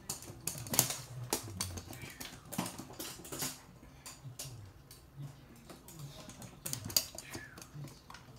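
A toy poodle's claws clicking irregularly on a hard laminate floor as it runs and turns, with a couple of louder knocks about a second in and near the end.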